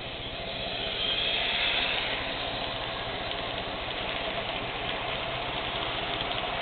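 HO scale model train running past close by: the locomotive's electric motor whine swells to its loudest as it goes by a second or two in. Then the freight cars roll past with a steady hum of wheels on track and light clicking.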